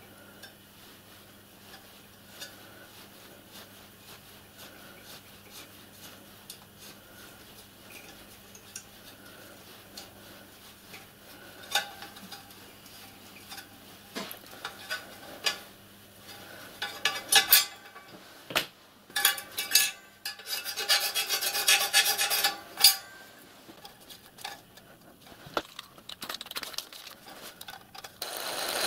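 Hand tapping a 6BA thread in a mild steel band with a tap wrench: small metallic clicks at first, then louder metal-on-metal clinks and scraping from about halfway through, with the heaviest rasping a little over halfway and again near the end.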